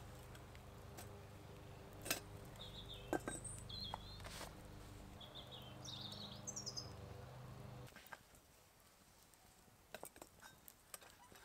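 Faint wood campfire with a few sharp crackles and small bird chirps, over a low steady hum that cuts off suddenly about eight seconds in.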